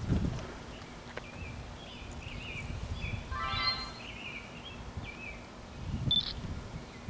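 Small birds chirping in open-air ambience, with one longer, fuller call a little past three seconds. A low rumble on the microphone comes at the start and again about six seconds in.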